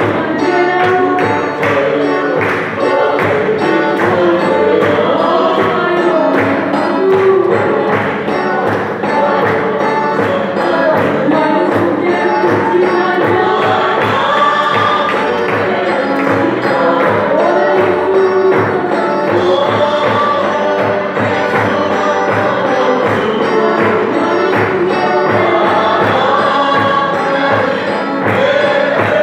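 A congregation singing a hymn together over a steady drumbeat.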